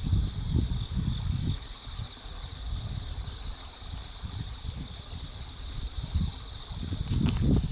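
Wind buffeting the microphone in uneven gusts, over a steady high-pitched chorus of insects in the grass, with a single click near the end.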